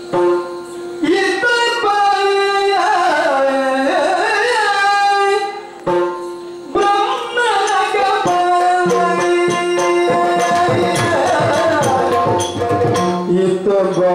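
Yakshagana music: a male singer's ornamented, bending vocal line over a steady drone, with chande and maddale drums whose strokes grow denser in the second half.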